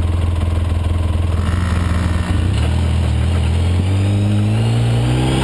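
ATV engine running under way, heard from on board: a steady engine note that shifts a little past two seconds in, then climbs gradually over the last couple of seconds as the quad speeds up.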